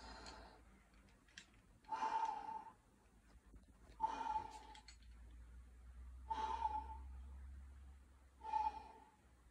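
Climber breathing hard on a strenuous route: forceful, partly voiced exhales, one about every two seconds, five in all.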